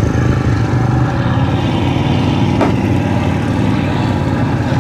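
Mud-bogging pickup truck's engine running hard under load, a steady loud throb as the truck pushes through deep mud and water. One sharp knock a little past halfway.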